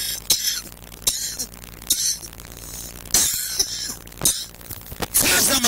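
People coughing and retching in short harsh bursts, about one a second, as they try to vomit; the bursts come thicker and louder near the end.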